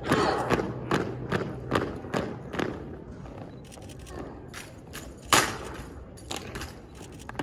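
Armed drill team working drill rifles on concrete: a quick, uneven run of sharp claps and thumps from rifles being slapped and struck and boots stamping, the loudest about five seconds in.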